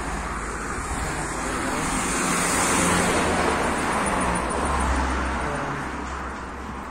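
Road traffic on a city street: cars driving past, the noise swelling to its loudest around the middle and fading toward the end, over a low engine rumble.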